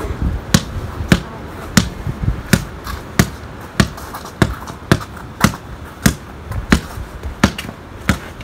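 A basketball being dribbled, bouncing in a steady rhythm of about three bounces every two seconds.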